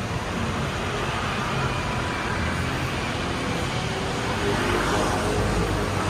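Steady traffic noise from the street, with a low rumble swelling near the end.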